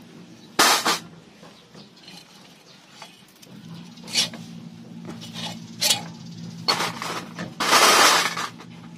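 Metal clinks and scrapes of air-cooled motorcycle engine parts being handled: the finned cylinder block slid off its studs and parts set down in a metal tray, a handful of sharp clatters with a longer, louder scrape near the end.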